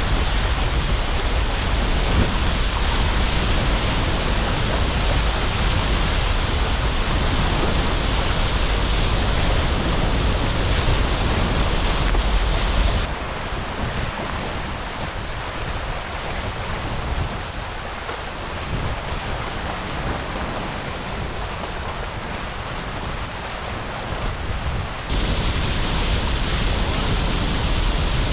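Strong wind buffeting the microphone over the steady rush of water and spray from a Tornado catamaran's hulls at speed. The noise drops sharply about halfway through and comes back up near the end.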